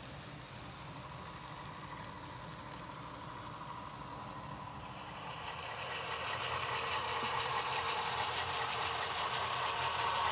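HO scale model trains running on track: a freight train's cars rolling by, then a Western Maryland cab-unit diesel model coming out of a tunnel, its running sound growing steadily louder from about halfway in.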